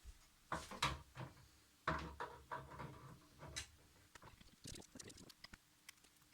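Knocks, scrapes and small clicks of 3D-printer Z-axis parts being handled and fitted back together: a few louder knocks in the first few seconds, then a run of light ticks.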